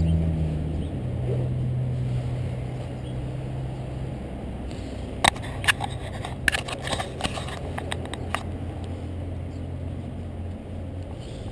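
A motor vehicle engine running close by with a steady low hum that slowly fades. About halfway through comes a cluster of sharp clicks and taps.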